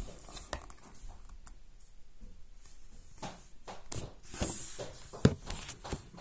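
Handling noise: scattered soft knocks, clicks and brief rustles as a phone and a book are held and moved, with one sharper knock about five seconds in.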